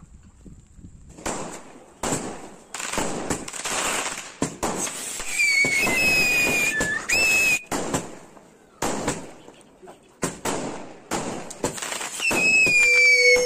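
Crackling tin fountain firework going off in repeated bursts of crackles. A high whistling tone sounds about halfway through and again near the end, falling slightly the second time.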